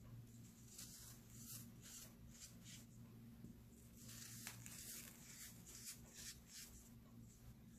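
Dried baking soda crumbled and squeezed between the fingers: faint, soft, gritty crunching and rustling in two spells of quick crackles.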